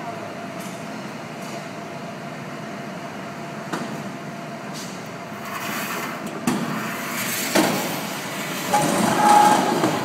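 Beer bottling line's rotary filler running, a steady mechanical din with glass bottles clinking now and then. It grows louder, with a rushing hiss, in the second half.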